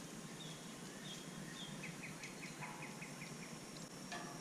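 Faint birdsong in the background: a few short high notes, then a quick run of about nine short chirps.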